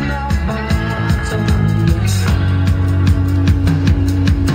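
Rock music with guitar, bass and a steady drum beat, played back over loudspeakers through an Audio Research SP-9 MkII tube preamplifier on test.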